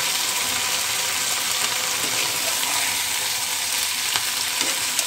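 Flat beans, onion and garlic sizzling in hot oil in a metal frying pan, with a steady hiss and a few sharp scrapes and taps from a metal spatula as they are stirred.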